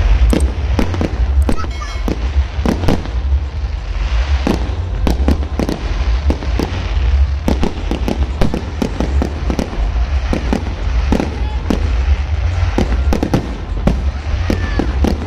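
Fireworks going off in a dense, irregular barrage of sharp bangs and crackles, several a second, over a constant low rumble. A few short whistling glides are heard near the end.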